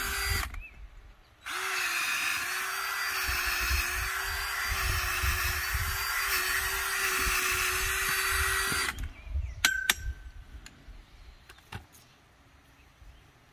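Cordless drill spinning an auger bit down into the potting soil of a planter pot to bore a deep planting hole, running at a steady pitch. It stops about half a second in, starts again a second later and runs until about nine seconds in, then a few light knocks follow.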